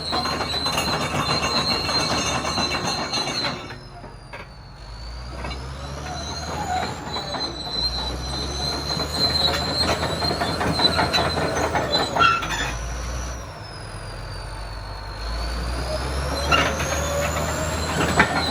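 Caterpillar D7H crawler bulldozer running and moving on its steel tracks, its undercarriage squealing and clattering, with a high whine that rises and falls. The noise drops away briefly about four seconds in and again about fourteen seconds in.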